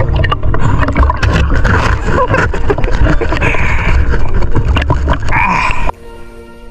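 Water sloshing and wind buffeting a camera held at the sea surface, a steady low rumble with small splashes and a few shouts. About six seconds in it cuts abruptly to soft music.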